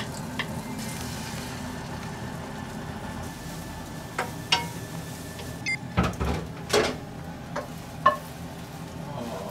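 Beaten egg frying in an oiled frying pan over a gas burner, a quiet sizzle over a steady low hum. From about four seconds in, a wooden spatula knocks and scrapes against the pan several times, the loudest knock about six seconds in.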